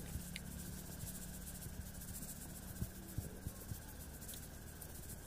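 Salt shaken from a plastic bottle into an open pressure cooker of stewed meat: a few light ticks about three seconds in, over a faint steady hiss.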